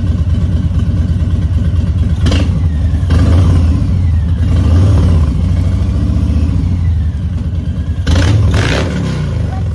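Harley-Davidson Softail Street Bob's Twin Cam V-twin engine running with a deep, pulsing exhaust, blipped a few times: about two seconds in, around three seconds, and twice near the end.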